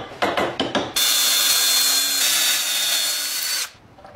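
A steel pin in an iron lock case tapped with a wooden mallet: about five quick sharp knocks. Then a power tool runs loudly for nearly three seconds, a high whine over a hiss, and cuts off suddenly.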